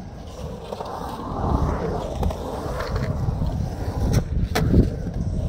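Skateboard wheels rolling over the concrete of a skatepark bowl, a rough rumble that swells about a second in, with two sharp clacks about four seconds in.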